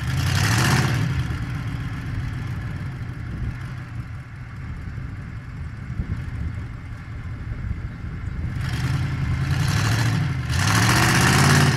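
Ford pickup truck's engine revving hard under load as it tries to drive through deep grass. It surges at the start, settles to a steadier run, then climbs again in two pushes near the end, which is the loudest part.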